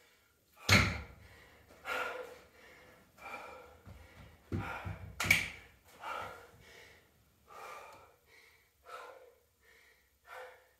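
A woman breathing hard and gasping, with a short breath about once a second, out of breath after a minute of dumbbell swings. There is a heavy thump about a second in as the dumbbell is set down on the floor, and another thud around five seconds in.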